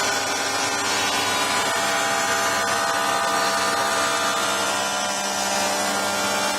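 Charnwood W583 cast iron planer thicknesser running, a steady whine of several tones over a loud hiss that turns brighter right at the start.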